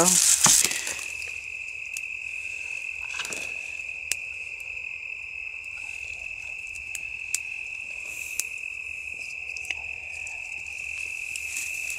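Crickets calling in a steady high-pitched chorus, with occasional sharp clicks and a brief rustle about three seconds in from twigs and dry leaves being handled around a small kindling fire.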